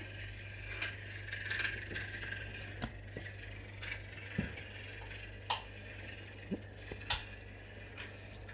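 Quiet room tone with a steady low hum and a few faint, sharp taps.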